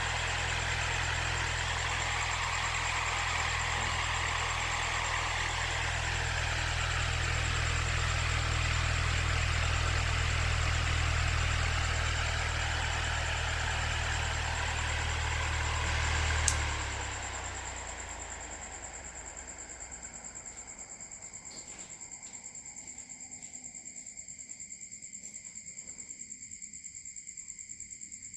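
Small high-speed DC motor spinning a cardboard fan, running with a steady hum and rush of air. About sixteen seconds in, a click, and the motor winds down to a stop over a couple of seconds, leaving only a faint high steady whine.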